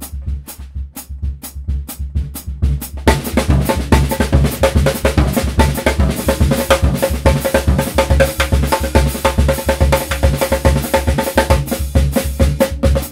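Drum kit played with sticks over a steady low bass pulse. Light ticks come about four a second at first, then about three seconds in the playing turns to busy, loud snare drumming, with a mobile phone lying on the snare head.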